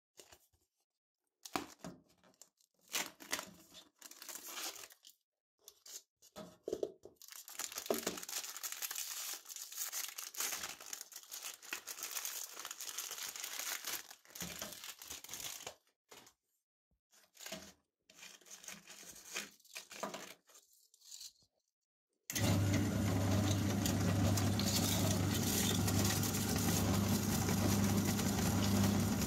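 Foil and plastic packaging crinkling and tearing in short bursts as a paprika chip canister is opened and its plastic tray of chips is pulled from the foil bag. About 22 seconds in, an electric meat grinder's motor switches on suddenly and runs empty with a steady hum.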